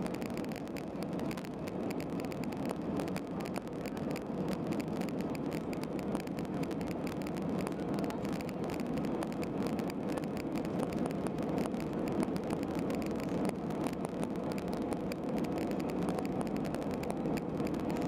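Steady cabin noise inside an Airbus A320 taxiing: the engines at idle thrust and the rumble of the airframe rolling on the ground, with a faint steady tone. The level stays even, with no spool-up for takeoff.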